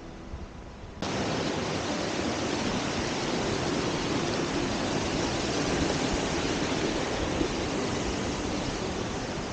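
Rushing stream water, a steady even rush that starts abruptly about a second in.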